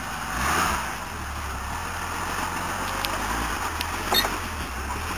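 Toyota Land Cruiser 40-series engine running at low, steady revs as the lifted 4x4 crawls over rocky ground, with a couple of short knocks about three and four seconds in.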